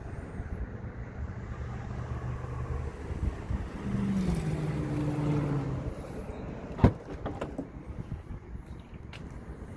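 A vehicle engine's low hum that dips in pitch about four to six seconds in, then a single sharp click about seven seconds in with a few lighter clicks after it: the Audi Q7's tailgate latch releasing.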